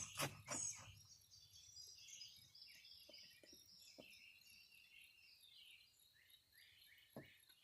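Faint birdsong: many short, quick chirping notes repeating over and over. A quick run of sharp clicks in the first second, and a few faint single clicks later.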